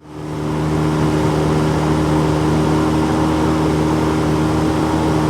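Boat outboard motor running at a steady speed, an even engine hum with a constant pitch over rushing noise.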